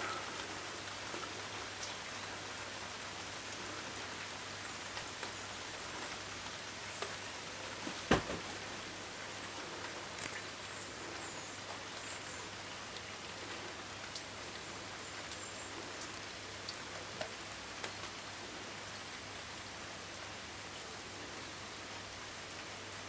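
Steady rain falling in a garden, an even hiss with scattered small drip taps. One sharper tap about eight seconds in stands out above the rest.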